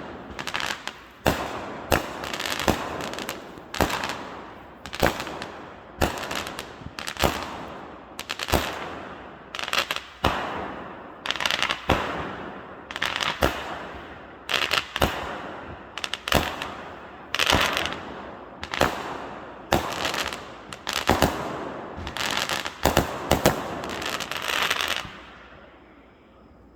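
Fireworks going off in a rapid, regular string of bangs, about one every three-quarters of a second, each followed by crackling, until they stop suddenly near the end.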